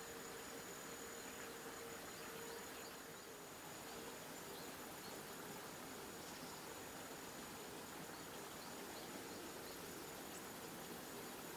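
Faint outdoor ambience with a steady high-pitched insect drone and a few faint, distant chirps.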